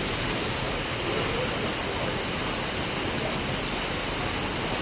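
Steady hiss of heavy monsoon rain pouring down onto a flooded street.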